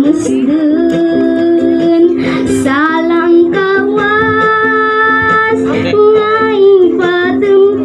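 A boy singing a Cuyonon song into a microphone, strumming his own ukulele as accompaniment, holding some long notes.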